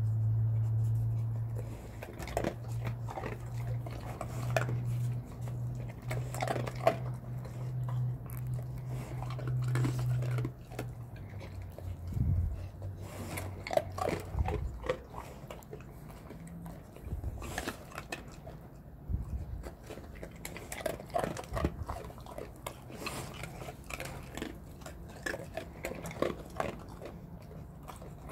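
Dogs crunching and chewing dry kibble taken from a hand, with many small crackles and clicks. A low steady hum runs underneath for the first ten seconds or so, then stops.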